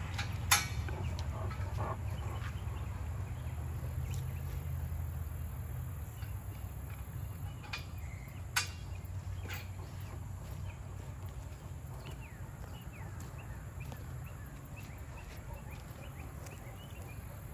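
Two sharp metal clinks from fitting a pallet fork to a tractor's three-point hitch, about half a second in and again about eight and a half seconds in, with smaller faint ticks of handling between them, over a steady low hum.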